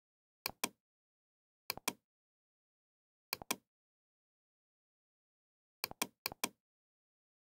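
Computer mouse clicks, five times, each a quick press-and-release pair of sharp clicks, with dead silence between them.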